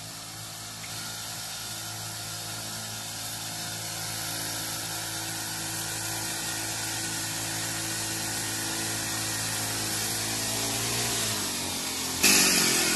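Small petrol engine of a backpack power sprayer running steadily at high pressure, with the hiss of its spray, growing gradually louder. The engine note dips slightly near the end, and a sudden loud hiss comes as the spray jet passes close.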